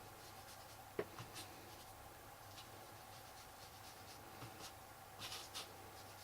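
Faint rubbing and scratching of Distress Ink being worked onto paper with an ink applicator, with one light tap about a second in.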